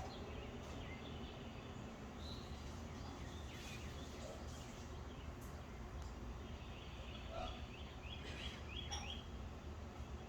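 Birds chirping and calling at intervals, with a quick run of short notes about eight seconds in, over a steady low background rumble.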